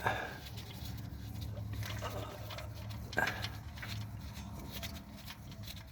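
Engine oil pouring from the open drain hole of a 2015 Camaro's V6 into a catch pan, a steady flow. Short voice-like sounds come at the start and about three seconds in.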